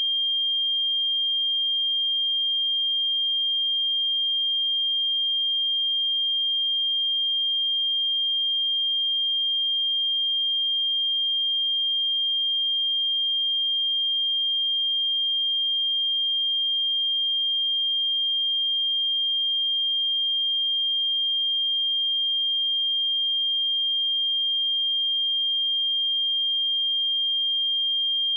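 A pure 3204 Hz sine-wave test tone, one steady high-pitched note held at constant loudness.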